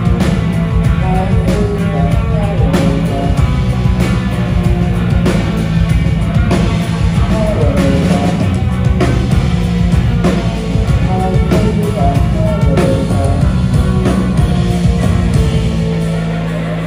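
Post-punk band playing live: electric guitars, bass guitar and drums in a steady rock groove. The overall level starts to fall near the end.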